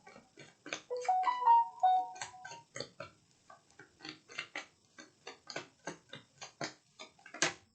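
A rapid, uneven run of light clicks, about five a second, with a short phrase of held musical notes about a second in and one sharper click near the end.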